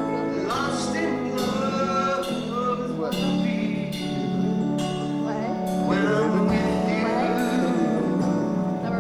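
A song playing: a singing voice over sustained instrumental chords, with a steady beat.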